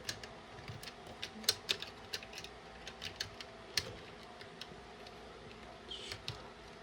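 Small plastic LEGO pieces clicking and tapping together as they are handled and fitted: a scattered run of sharp little clicks over the first four seconds or so, then little more than faint room tone.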